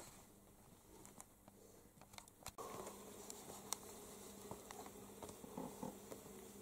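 Near silence with faint rustles and light taps of a ginger cat pawing at and rubbing its head against a hanging fabric suit.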